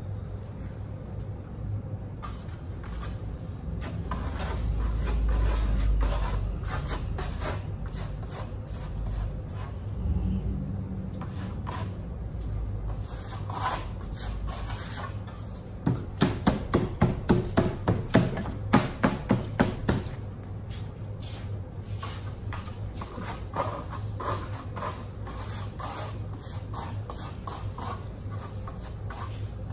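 Steel trowel spreading Marmorino lime plaster across a sample board, scraping and rubbing in repeated strokes, with a quicker run of louder strokes, about two or three a second, about halfway through.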